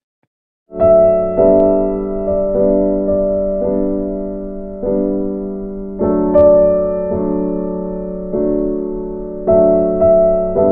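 Background piano music that starts after a moment of silence, a little under a second in: chords struck every second or so, each note dying away slowly.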